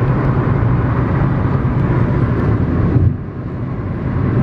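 Steady road and engine rumble of a car driving, heard from inside the cabin, with wind noise; it dips briefly about three seconds in.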